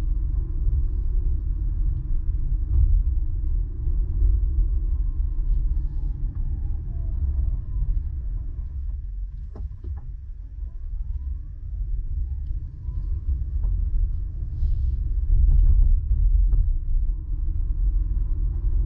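Steady low rumble of a car driving, heard from inside the cabin: road and engine noise with tyres on wet pavement. It eases off around the middle as the car slows through an intersection, then builds again.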